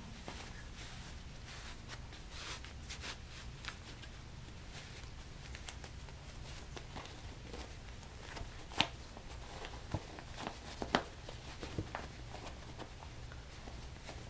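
Faint rustling and crumpling of a fabric oven mitt padded with batting as it is pushed right side out through a small opening and its shape worked out by hand, with a few sharper clicks in the second half over a steady low hum.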